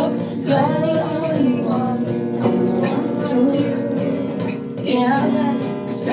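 A woman singing a pop song into a microphone with guitar accompaniment, with a short break between phrases just before the end.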